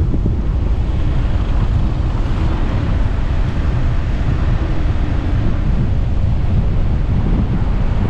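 Wind buffeting the microphone of a camera on a moving car, a loud steady low rumble with road and engine noise underneath.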